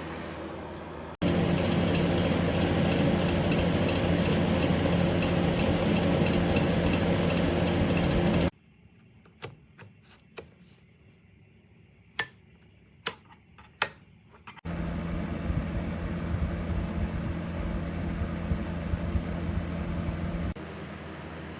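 Warmlite WL44004 2000 W flat fan heater running: a steady rush of blown air over a low hum. It cuts off abruptly about eight seconds in, and a few sharp clicks sound in the quiet. It then runs again a little more quietly for about six seconds before stopping short.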